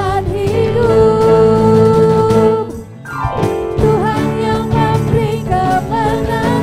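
Praise-and-worship music: a group of singers on microphones singing together over a band. About halfway through the music drops out briefly with a falling glide, then comes back in.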